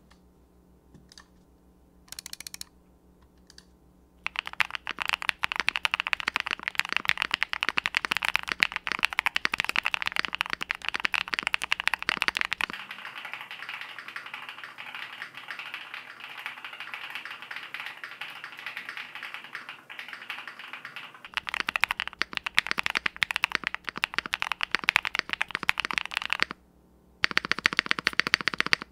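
Fast, steady typing on a TKD Cycle 8 tenkeyless mechanical keyboard with Epomaker Jade Blossom switches and PBTFans Ronin PBT keycaps, built in the all-foams O-ring gasket configuration. After a few single keystrokes the typing runs on densely, goes quieter and thinner through the middle while the camera's built-in mic picks it up, then returns to full body; a brief pause comes near the end before a last burst of keys.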